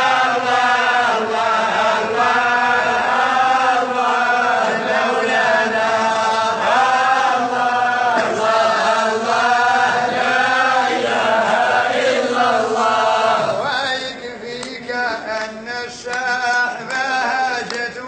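A man's voice chanting in long, wavering melodic lines, changing about fourteen seconds in to shorter phrases broken by pauses.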